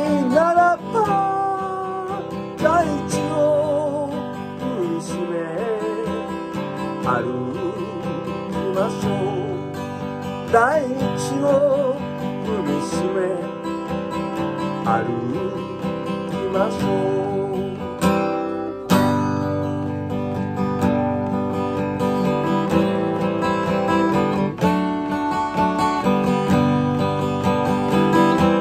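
Acoustic guitar strummed in a steady rhythm, with a man's singing voice over it through roughly the first half, then the guitar playing on alone.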